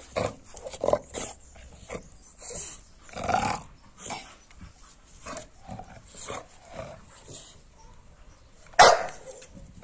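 An American Bully dog making a string of short growls and woofs at irregular intervals, with one loud bark about nine seconds in.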